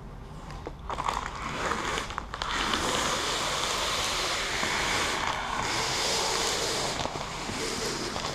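Plastic squeegee rubbing across vinyl wrap film on a car hood, pressing the film down; an even scraping noise that starts about a second in.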